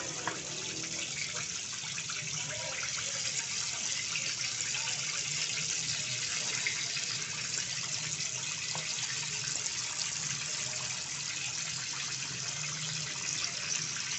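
Green-masala-coated fish pieces frying in hot oil in a kadai: a steady sizzle with fine crackling throughout.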